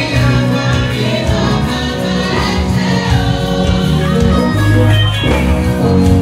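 A women's church choir singing a gospel song together through microphones and loudspeakers, over instrumental backing with sustained low bass notes.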